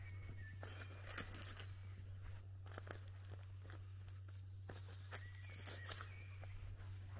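Faint slow footsteps crunching on a dirt-and-gravel road, with a couple of brief bird chirps near the start and again near the end over a steady low hum.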